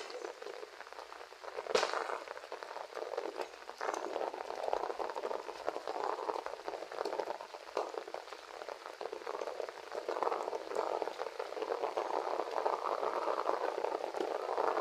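Rain falling steadily, a dense patter of drops with a few sharper ticks, growing a little heavier partway through.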